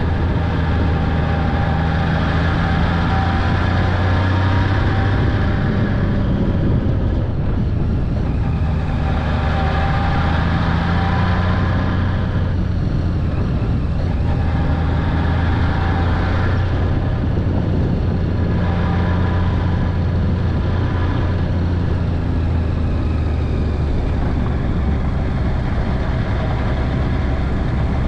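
Honda Valkyrie Interstate's flat-six engine running steadily under way, its pitch drifting slightly up and down with the throttle, with wind and road noise.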